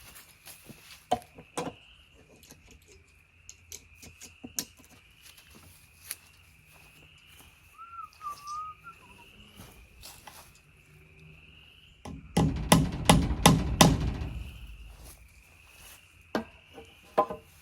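A hammer driving nails into wooden framing: about six quick loud blows in a row about two-thirds of the way through, with scattered lighter knocks and taps before and after. A faint high rising call repeats about once a second in the background.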